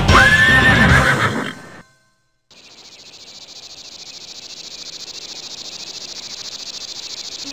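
A horse whinnies loudly in the first second or so. After a brief silence, a steady, high, finely pulsing chorus of insects starts and slowly grows louder.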